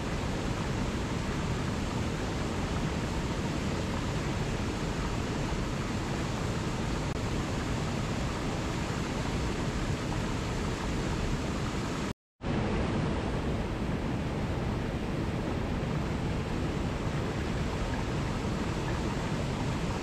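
Small waterfall cascading over rocks into a pool, a steady rush of falling water. The sound cuts out completely for a split second about twelve seconds in, then resumes unchanged.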